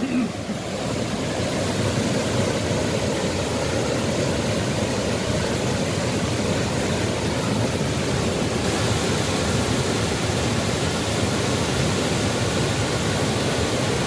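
Steady rushing of a tiered waterfall cascading over rock ledges into a pool, heard close to its foot.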